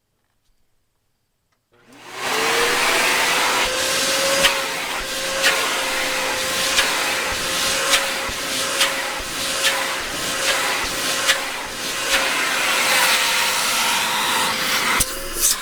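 Dyson Ball Multi Floor upright vacuum cleaner starting up about two seconds in, its motor whine rising quickly and then holding steady as it runs, with sharp clicks about once a second.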